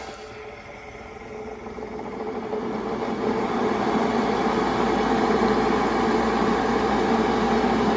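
Hoover Senior upright vacuum cleaner running with a steady motor hum, growing louder over the first few seconds and then holding steady.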